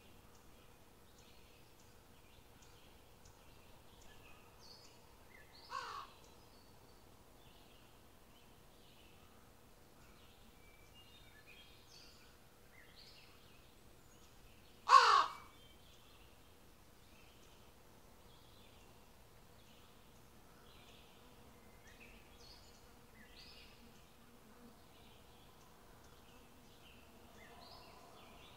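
Two harsh crow caws, a fainter one about six seconds in and a loud one about fifteen seconds in, each falling in pitch, over faint high chirps of small birds or insects.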